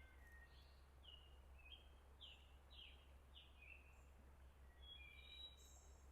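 Faint birdsong: a string of short falling notes, about two a second, followed near the end by a few higher, steadier notes.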